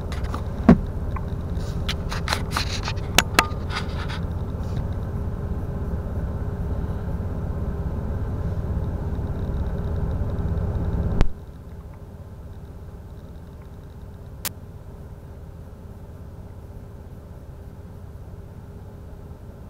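2007 BMW 525xi's inline-six engine idling at about 600 rpm during warm-up, heard from inside the cabin, with a few scrapes and clicks in the first few seconds. About eleven seconds in, after a click, the steady running sound drops suddenly to a quieter level.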